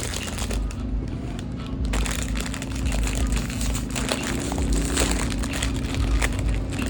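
A car engine running steadily with a low hum, with light crinkling and small clicks over it.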